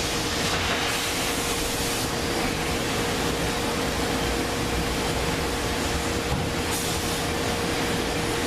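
Steady ventilation noise, a constant hiss with a thin steady hum tone, and the high hiss swelling briefly twice.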